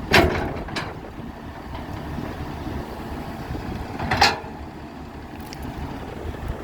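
Excavator's diesel engine running steadily, with a loud sharp knock just after the start and another about four seconds in.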